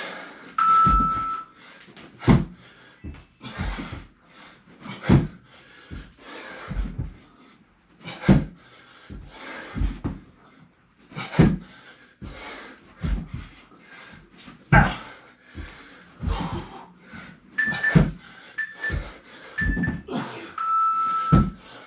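A person doing burpees: a heavy thud on the floor about every three seconds, with hard panting between. Electronic workout-timer beeps mark the interval: a long beep about a second in, then three short beeps and another long beep near the end.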